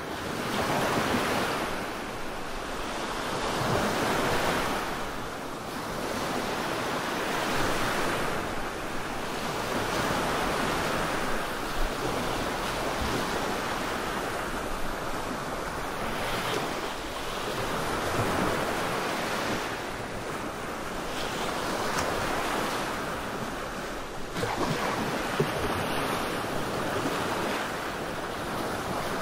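Rushing surf noise that swells and ebbs every three to four seconds, like waves washing in on a shore.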